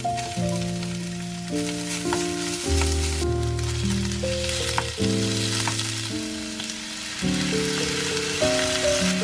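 Garlic, green onion and raw shrimp sizzling in oil in a frying pan. The sizzle grows stronger about three seconds in as the shrimp go in. Background music of held notes plays over it.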